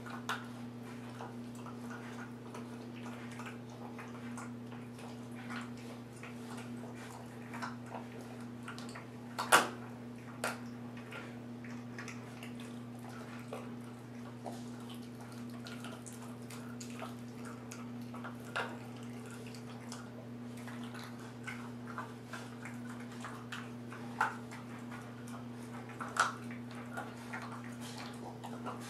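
Bullmastiff puppy's wet mouth sounds as it chews and licks, heard as scattered soft clicks and smacks with a sharp click about nine and a half seconds in. A steady low hum runs underneath.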